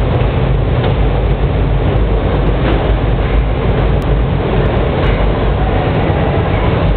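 Steady, loud machinery noise of a glass-processing line with an automatic glass loader and roller conveyor: a low hum and rumble with a few faint clicks over it.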